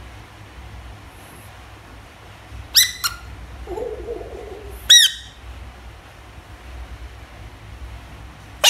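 Frog giving distress screams when prodded by a hand: four short, shrill cries, two close together about three seconds in, one about five seconds in and one at the very end.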